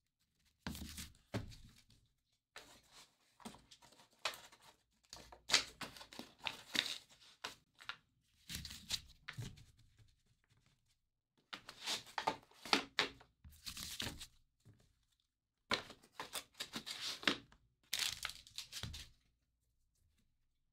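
Crinkling and tearing of thin plastic packaging while trading cards are handled. It comes in irregular bursts about a second long with short pauses between them.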